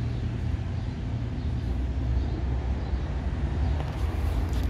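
Steady low rumble of outdoor background noise, with no one speaking.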